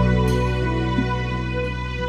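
Slow, soft instrumental background music with sustained notes, a new note struck about a quarter second in and another about a second in.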